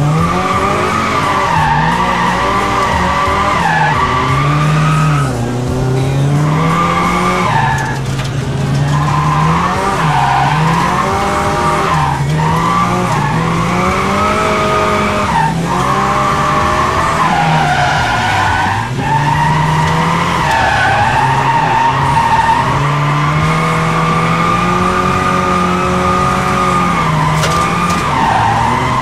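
Drift car's engine revving up and down again and again through the corners, with long wavering tyre squeal from the sliding tyres, heard from inside the cabin.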